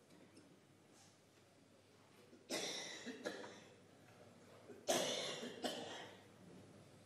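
A person coughing: two bouts about two seconds apart, each a sharp cough followed by a smaller second one.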